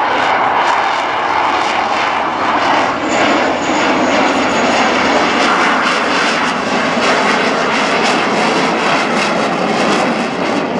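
Military aircraft engines during an air-show flypast: a loud, steady rush of engine noise with a faint high whine a few seconds in.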